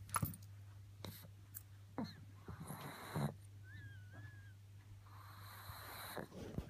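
A pug snoring: two long noisy breaths, with short snorts and snuffles between them and a thin whistling wheeze in the middle.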